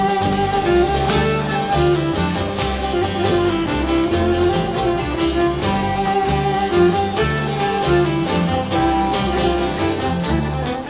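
Instrumental break of a Cypriot folk song, played live: a viola carries the melody over a rhythmically strummed laouto and a bass, with no voice.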